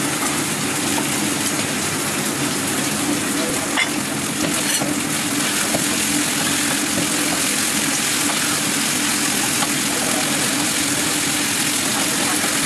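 Food frying in hot oil in a non-stick frying pan, sizzling steadily while a spatula stirs it, with a couple of spatula clicks against the pan about four seconds in. A steady low hum runs underneath.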